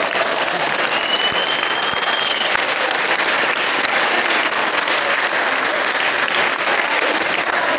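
Audience applauding steadily, a dense patter of many hands. A brief high whistle sounds for about a second and a half, starting about a second in.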